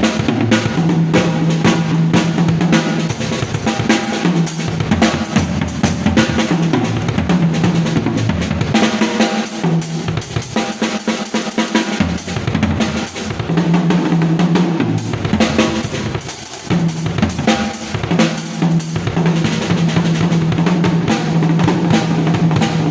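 Drum kit played in a continuous groove, with kick drum and snare hits throughout and a sustained low note sounding underneath in stretches.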